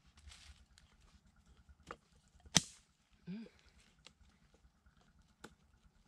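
Wooden sticks clicking and knocking as they are fitted together by hand, with a light rustle of dry leaves. A single sharp crack a little before halfway is the loudest sound, followed by a brief low pitched sound.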